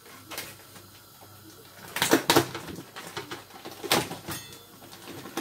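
Lamb chops being lifted out of their plastic supermarket tray: the tray and packaging rustle and clack, with a few sharp knocks, the loudest about two seconds in and again about four seconds in.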